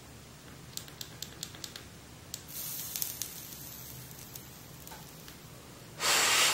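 A quick run of small clicks, then the C2 clearomizer's bare heating coil sizzling as it is dry-burned on the battery, cooking residue off the coil and wick. A short, loud burst of hiss near the end.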